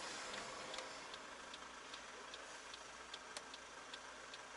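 Turn-signal indicator of a Ford BA Falcon ticking steadily, about two and a half clicks a second, inside the cabin. The engine idles faintly underneath.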